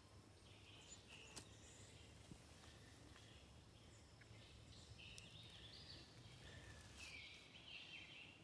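Quiet woodland ambience: faint, scattered bird calls over a low steady hum, with a few soft clicks.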